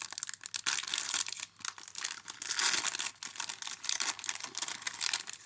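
Wrapper of a Panini Contenders football card pack being torn open and crinkled by hand, a dense, irregular crackling.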